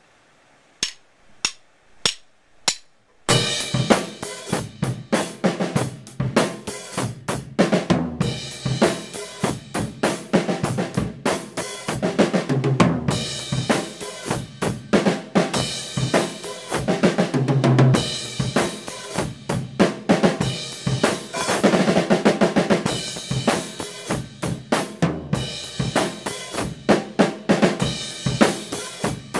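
Drum kit played with sticks, after four evenly spaced clicks near the start: snare, bass drum and cymbals in a steady, busy groove.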